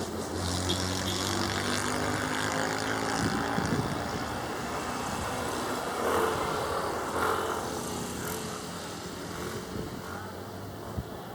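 Cessna 208B Grand Caravan's single turboprop engine and propeller droning as the plane comes in to land. The steady hum is strongest in the first few seconds, then fades.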